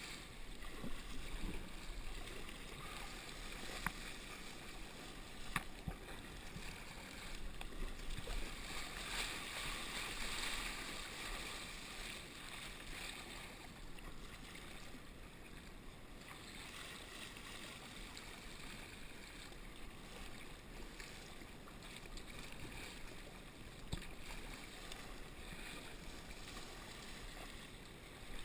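Sea kayak paddling through choppy water: paddle strokes and water splashing and rushing along the hull, with a few sharp knocks. The splashing is louder in the first half and eases off later.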